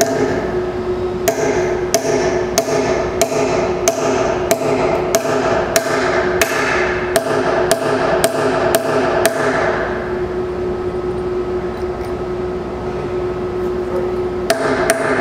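Hammer striking a steel setting tool to expand a 3/8-inch drop-in anchor in a drilled concrete hole: a run of sharp blows, two to three a second, that stops for a few seconds and starts again near the end. A steady hum runs underneath.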